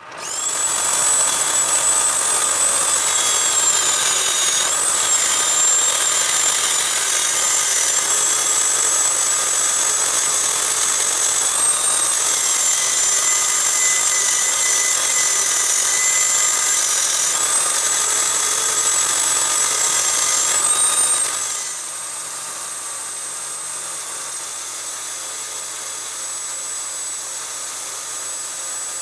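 Dremel 3000 rotary tool, mounted as a lathe tool post grinder, whining at high speed as its abrasive stone grinds a turning metal workpiece and throws sparks. The high whine wavers and dips in pitch now and then; about 21 seconds in the sound drops to a quieter, steadier hum.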